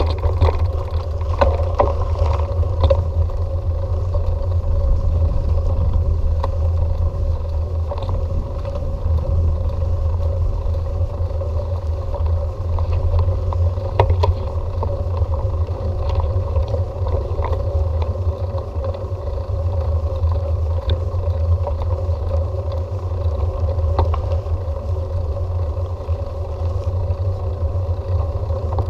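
Bicycle in motion: a steady low rumble with a faint steady hum and scattered small clicks and rattles, busiest in the first few seconds.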